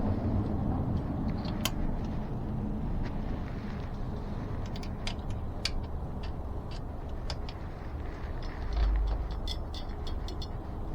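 Small metal clicks and taps from handling an e-bike disc brake caliper and its bolts while fitting it back on the frame, over a steady low rumble; a dull low thump near nine seconds.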